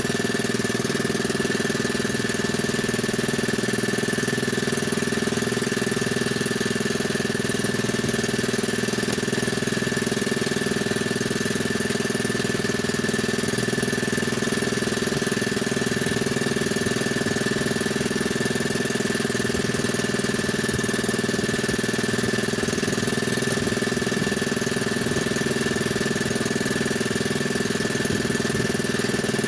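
Small engine running steadily at an even speed, with a steady high whine over it and no change in pitch or level.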